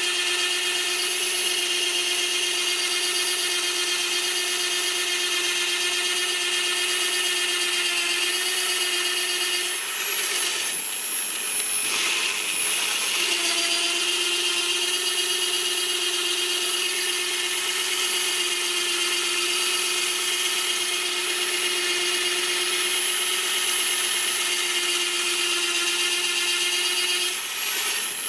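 Bosch PBD 40 bench pillar drill running under load, its large bit boring into a wooden beam: a steady motor hum and whine with the cutting noise of the wood. The steady tone falters for a few seconds about ten seconds in, then settles again.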